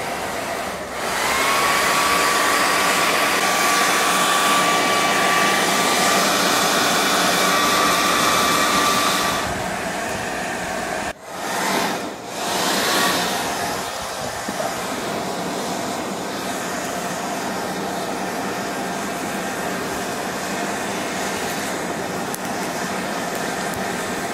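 Electric hair dryer blowing air into a charcoal barbecue to fan the coals red hot: a steady rush of air with a thin whistling tone. It runs loudest for the first third, cuts out briefly a little before the middle, then carries on steadily at a lower level.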